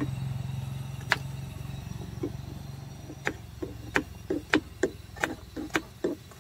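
Knife chopping onion and tomato on a cutting board: a single cut about a second in, then steady chopping at about three strokes a second from about three seconds in. A low steady hum fades away over the first few seconds.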